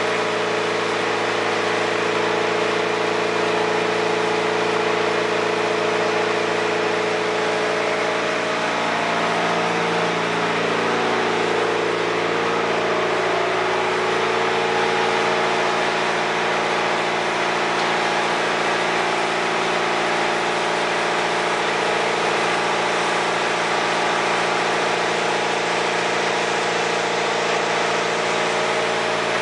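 Soybean oil mill machinery running under load: twin screw oil expellers pressing soybeans, with the cake screw conveyor turning. It makes a steady, loud machine hum with several steady tones, which shift slightly about ten seconds in.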